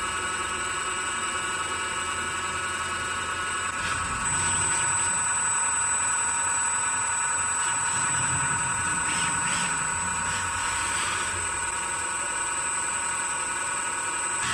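Motors of a prototype harmonic-drive 5th-axis rotary kit on a CNC mill running without cutting, giving a steady high whine of several tones at once. About four seconds in it gets louder and one tone strengthens, then it holds steady.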